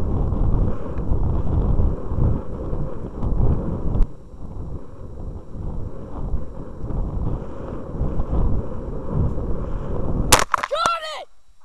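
Wind rushing over the microphone of a model rocket's onboard camera as the rocket comes down, easing a little after about four seconds. Near the end a sharp knock as it touches down on the grass, followed at once by a short high call that falls in pitch.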